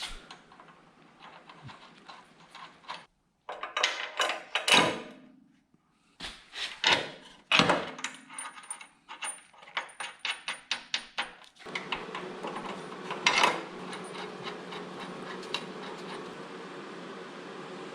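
Metal brackets and bolts being handled and fitted to a truck frame: a run of sharp clinks, clanks and rattles. About two-thirds of the way in a steady mechanical hum starts and runs on under one more loud knock.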